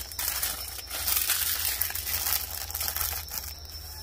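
Crinkling and crunching from hands handling kindling and scraps of plastic on an ash-covered wood hearth, building a fire, loudest about a second in and dying away near the end.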